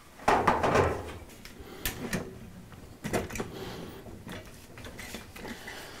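Dryer cabinet panel being handled and fitted back on: a scraping slide with a low rumble of just under a second near the start, then scattered light clicks and knocks of the panel and fittings.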